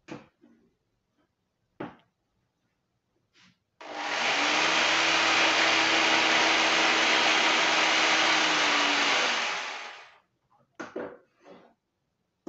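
Handheld electric saw starting up suddenly about four seconds in and running steadily for about six seconds as it cuts through a hard-skinned marrow, then winding down. A few light knocks of handling come before and after.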